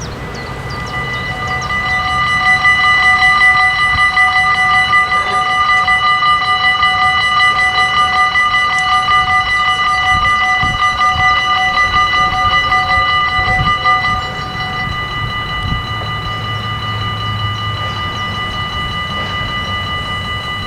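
Dutch level-crossing warning bell ringing rapidly as the crossing activates for a train. It starts about a second in and drops in loudness about 14 seconds in.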